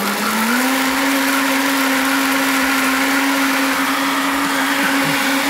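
Sencor countertop blender running, blending a smoothie; its motor whine steps up in pitch about half a second in, then holds steady.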